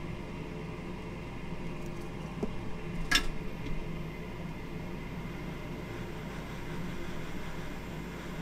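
Steady fan-like hum of bench equipment while flux is soldered, with one short sharp crackle about three seconds in.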